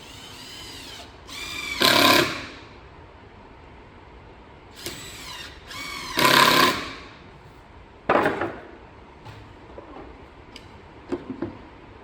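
Cordless drill-driver with a PZ2 bit driving 30 mm screws into phenolic plywood shelf panels: two short whirring runs, each louder in its second half. A sharp knock follows about eight seconds in, then a few light taps near the end.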